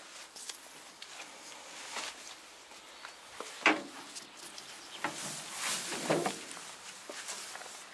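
Footsteps and hand-held camera handling noise: scattered light knocks and rustles, with a sharp click about three and a half seconds in.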